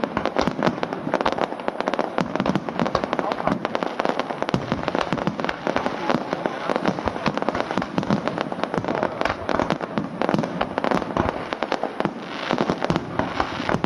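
Fireworks going off in a dense, continuous barrage of rapid crackling bangs, with a short lull about twelve seconds in.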